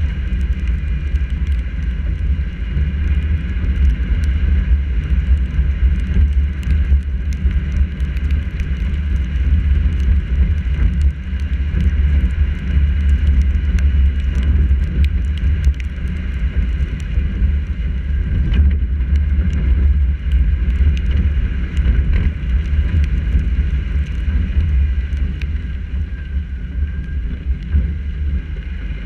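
Car driving on wet streets, heard through a GoPro mounted on the bonnet: a steady deep rumble of engine, tyres and wind buffeting the camera, with scattered light ticks of raindrops striking the camera.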